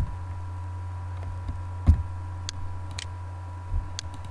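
Computer keyboard keys pressed one at a time, about six separate clicks with the loudest about two seconds in, over a steady low hum.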